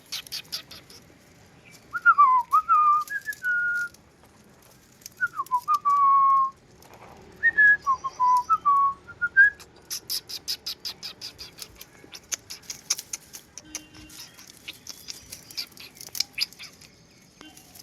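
Bulbul singing short, liquid whistled phrases that glide up and down, in three bursts, followed by a long run of rapid, high ticking.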